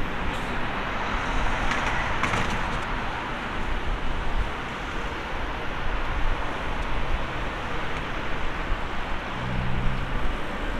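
Steady broad roar of an Airbus A380's jet engines during its takeoff.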